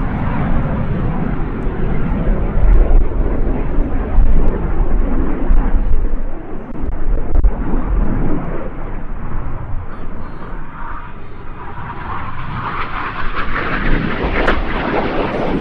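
Jet noise from a BAE Hawk T1 with its Adour turbofan, flying a display pass. A steady rumble turns sharper and higher in the last few seconds as the jet heads toward the listener.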